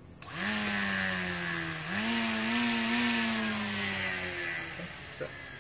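Electric motor of a 24 V cordless battery grass trimmer spinning up with a rising whine, running, its pitch stepping up again about two seconds in, then winding down near the end.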